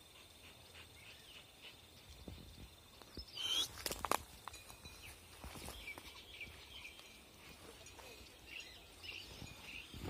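Footsteps and rustling through dry grass outdoors, with a louder burst of rustling and knocks about four seconds in and faint bird chirps scattered through.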